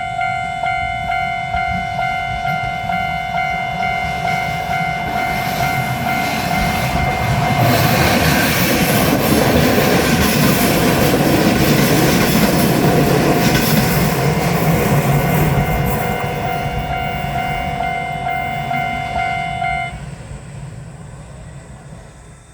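Japanese level-crossing warning bell dinging in a steady rhythm while a Kotoden electric train passes through the crossing. The train's running noise and wheel clatter swell to their loudest about 8 to 15 seconds in, then fade as it moves away. The bell stops abruptly near the end.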